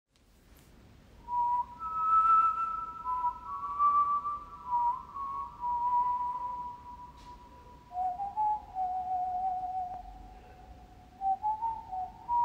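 Slow whistled melody of long, held notes, often two pitches sounding together, beginning about a second in and stepping down to lower notes around the middle.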